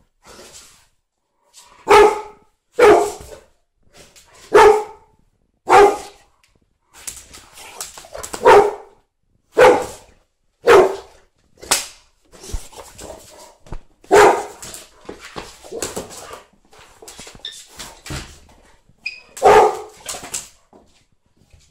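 Bullmastiff barking in play: about a dozen loud single barks, spaced irregularly a second or two apart, with quieter sounds between them.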